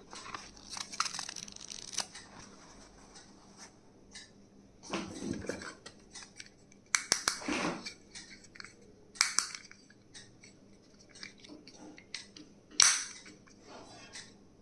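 Small stationery items and their packaging being handled: scattered clicks and taps with several short rustling, crinkling bursts, and one sharp snap near the end.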